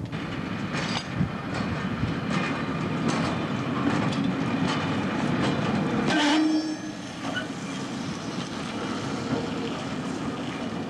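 Freight wagons rolling slowly through a marshalling yard, steel wheels rumbling and clicking over the rails. About six seconds in there is a loud sharp knock with a brief squeal.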